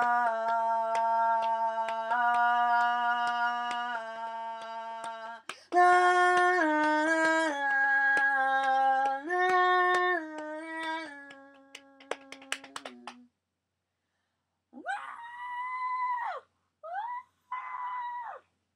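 A person humming a wordless melody in long, steady held notes that step from pitch to pitch, stopping about 13 seconds in. After a pause come three high, whining cries: the first slides up, holds and drops away, and two shorter ones follow.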